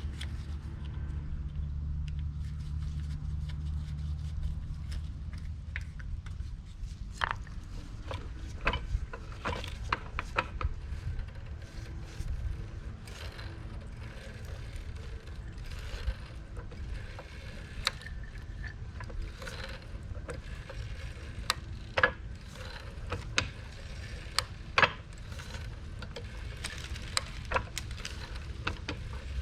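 Scattered metal clicks and knocks of hand tools and floor jack parts being handled, with a low steady hum that stops about five seconds in.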